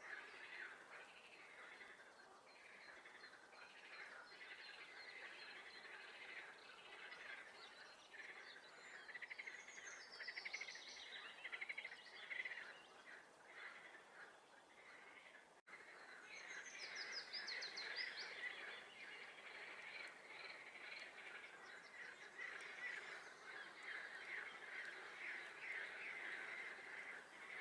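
A chorus of swamp frogs calling together, a dense unbroken pulsing croak. A songbird sings high above it twice, about a third of the way in and again past the middle. The sound breaks off for an instant about halfway.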